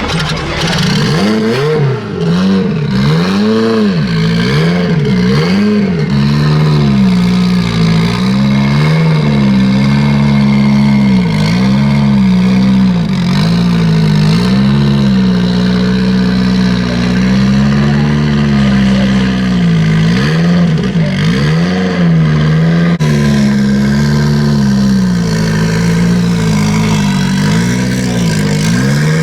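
1983 Renault 5 Turbo 2's turbocharged 1.4-litre four-cylinder engine being revved over and over, its pitch rising and falling in quick swings at first and then in longer pulls held at higher revs.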